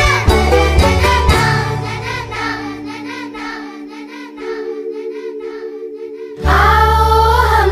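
Background music with sung vocals. The bass and beat drop out about halfway through, leaving the voices quieter, then come back in suddenly and loudly near the end.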